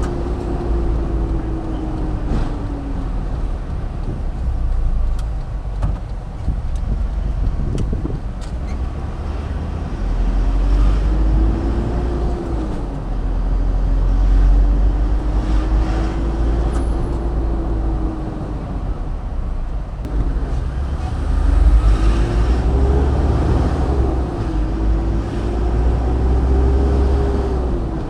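Car on the road: a heavy low rumble of road and wind noise, with the engine's pitch rising and falling several times as the car speeds up and slows.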